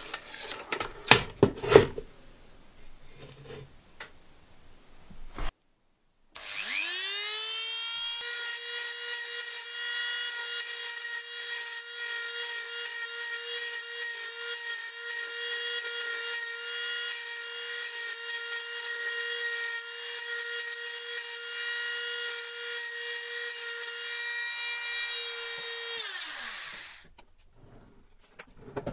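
A few sharp knocks as the steel helmet is handled at the bench vise. Then a hand-held rotary tool spins up to a steady high whine and grinds down a rivet head on the steel helmet for about twenty seconds, winding down near the end.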